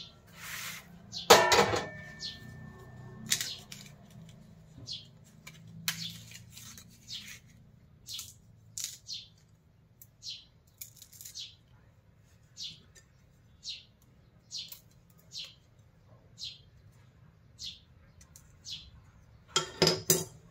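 A metal bowl set down on a gas stove with a clang and brief ringing about a second and a half in. Then short, high, faint chirps come about once a second, and a quick run of knife knocks on the tiled counter comes near the end.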